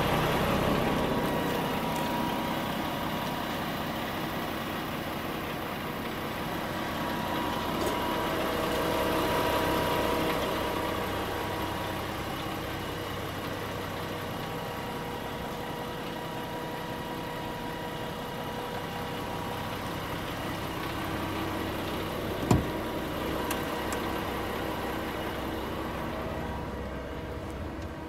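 DAF XF 510's 12.9-litre six-cylinder diesel idling steadily. There is one sharp knock about three-quarters of the way through, and the sound grows duller near the end.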